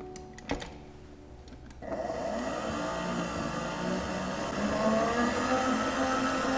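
A red tilt-head stand mixer's head clicks down into place. About two seconds in its motor switches on, whisking thick whipped cream in a steel bowl, with a steady whine that climbs in pitch and grows louder near five seconds in.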